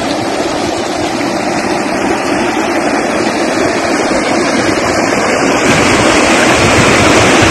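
Steady engine noise and rushing, splashing water as a motorized craft pushes through floodwater over a road. The noise grows gradually louder.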